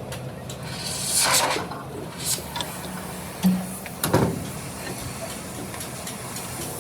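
Workshop repair noises over a low steady hum: a rushing, hissing noise about a second in, and a sharp metallic knock about four seconds in.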